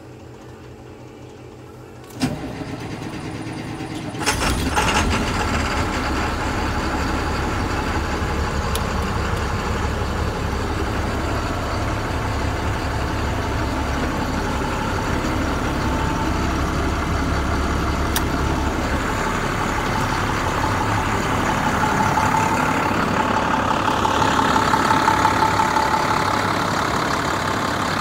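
Diesel engine of a 2008 IC FE school bus being started: the starter cranks for about two seconds, and the engine catches about four seconds in and settles into a steady idle. The idle grows a little louder for a few seconds near the end.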